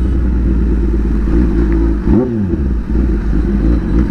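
Kawasaki ZX-10R's inline-four engine with an SC Project exhaust running at low speed in second gear. About two seconds in there is a short rev that rises and falls back.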